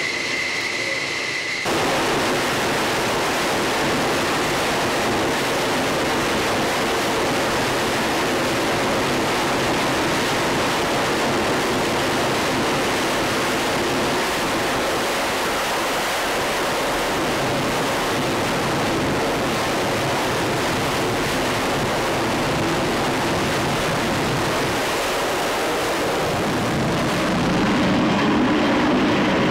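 F-14A Tomcat's twin Pratt & Whitney TF30 turbofans at full power on a carrier catapult: a loud, steady rushing noise that sets in abruptly about two seconds in, replacing a high engine whine. It swells near the end as the catapult fires and the jet launches.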